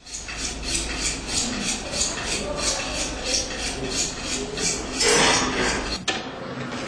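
Rhythmic clinking, about three strikes a second, over a steady low hum, followed about five seconds in by a louder scraping rush that ends in a sharp click as the hum cuts out.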